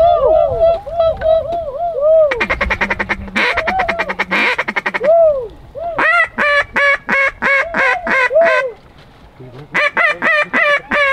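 Hand-blown duck calls: a run of quacks, then long strings of fast, rapid-fire chattering calls to work ducks toward the decoys. The calling breaks off briefly about nine seconds in, then starts again.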